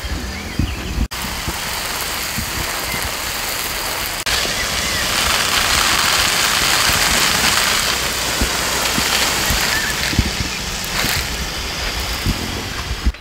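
Garden hose spray gun showering water onto soil, straw mulch and the greenhouse wall: a steady rain-like hiss of spray, a little louder from about four seconds in.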